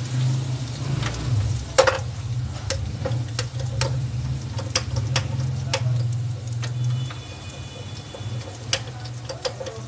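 Ginger-garlic paste frying in hot oil with fried onions in an aluminium pot: irregular sharp pops and crackles from the spattering oil, over a low steady hum.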